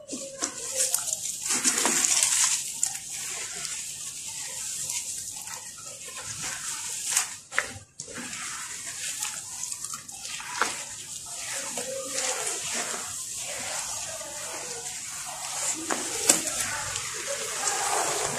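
Hands squeezing and crumbling lumps of sand-cement in a plastic tub of water: wet gritty crackling and sloshing as the lumps break down into slurry, with a brief break about eight seconds in.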